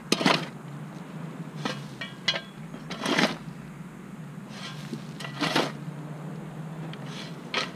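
Shovel blade digging and scraping into dry dirt and gravel, about six strokes a second or two apart, each with a gritty rush of soil being thrown onto the mound.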